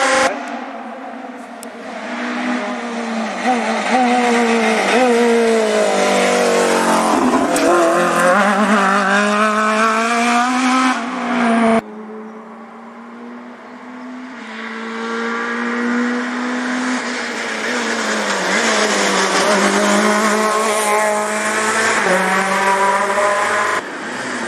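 Rally car engines on a tarmac special stage, each revved hard as the car approaches, the note rising and dropping repeatedly with gear changes and lifts and growing louder as it nears. Two approaches in turn, the first cut off abruptly about halfway through.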